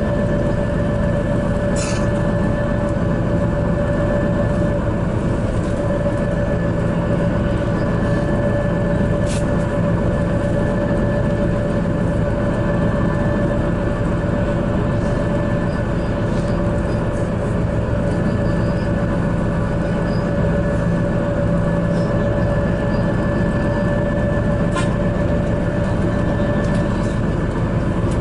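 Interior of a moving bus: a steady drone of engine and road noise with a constant whine running through it, and a few sharp clicks or rattles.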